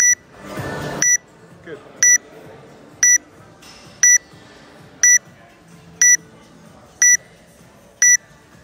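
Electronic countdown timer beeping, one short high beep about every second, nine in a row.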